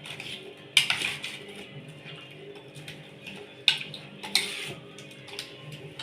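A metal spoon clinking and scraping against a bowl as chicken marinade is mixed, with three sharper knocks: about a second in, near the middle, and shortly after.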